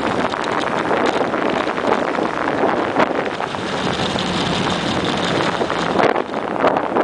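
Wind rushing over the microphone of a camera on a moving bicycle, a steady rough rush with a few short knocks from the ride.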